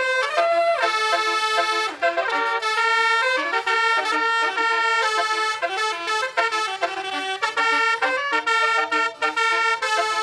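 Bus basuri telolet horn playing a melody: a run of horn notes, some held and some stepping quickly from pitch to pitch, with barely a break between them.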